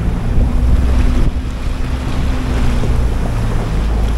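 Small sightseeing boat's engine running steadily under way, with wind buffeting the microphone and the wash of waves.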